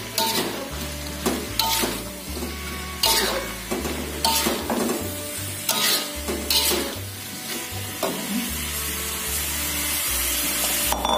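A metal spatula scrapes and stirs potatoes, tofu and tempeh in a metal wok, the food sizzling in the hot pan. The scrapes come about once a second, then stop about eight seconds in, leaving only a steady sizzle.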